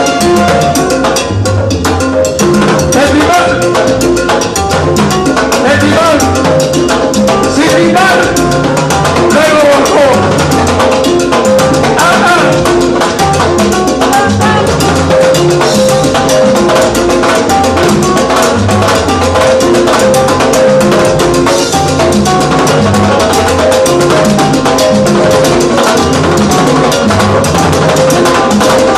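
Live salsa band playing at full volume, timbales and hand drums driving a dense percussion rhythm under held melodic notes.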